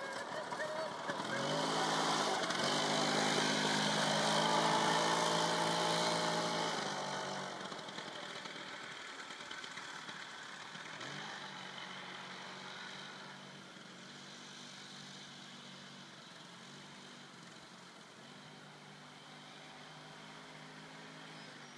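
Small go-kart engine running as the kart drives by on the track: loudest in the first several seconds as it passes close, then fading as it moves away, with the pitch rising about eleven seconds in as it speeds up again.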